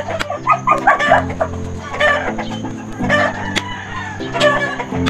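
A chicken squawking in distress, repeated ragged cries, as it is beaten with a stick in the pinikpikan way. A few sharp knocks come in among its calls.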